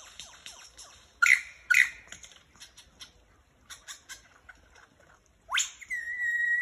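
Superb lyrebird singing a varied run of calls: quick repeated falling notes, then two loud sharp calls about a second in and scattered short notes, and near the end a fast rising sweep into a long, steady whistle.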